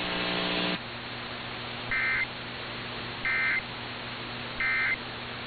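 A brief buzz, then three short warbling data bursts about 1.3 seconds apart: the Emergency Alert System End Of Message code closing the alert. It is heard over AM radio, with steady hiss and hum underneath.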